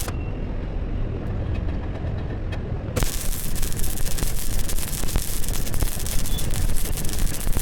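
MIG welding arc crackling and hissing. The arc is off at first, leaving only a low steady hum, then strikes again about three seconds in and crackles on steadily.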